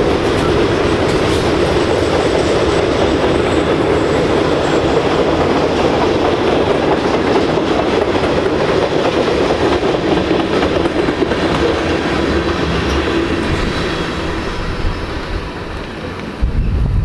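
Freight cars of a passing manifest train rolling by: a steady rumble of steel wheels on rail with clickety-clack, fading as the last cars go past near the end. Wind buffets the microphone in a low rumble just before the end.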